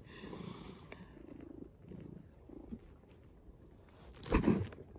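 Tabby cat purring close to the microphone, a soft low rumble that swells and fades with its breathing. Near the end there is one brief, louder rustling bump.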